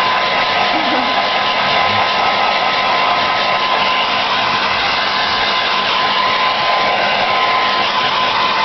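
Hand-held hair dryer running without a break: a rush of air with a constant motor tone over it.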